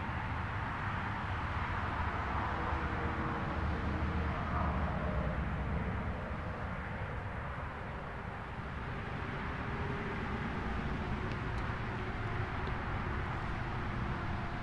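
Single-phase ACA P-15 Penetrator siren (9/12 port) winding down after its full alert, its two faint tones sliding slowly lower. Steady rushing noise from road traffic is louder than the siren.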